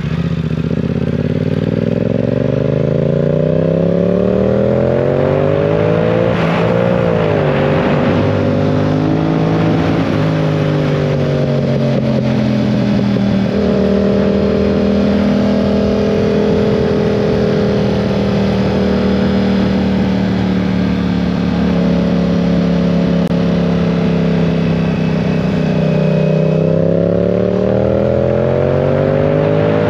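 2022 Yamaha R7's 689 cc parallel-twin engine under way, its pitch climbing over the first few seconds, dipping briefly and climbing again, then falling back about ten seconds in. It holds a steady pitch for about a dozen seconds and climbs again near the end.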